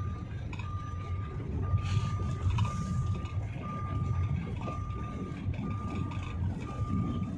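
A car's warning chime beeping steadily from inside the cabin: one long high beep about every second with short gaps between. Under it is the low rumble of the car driving on a dirt track.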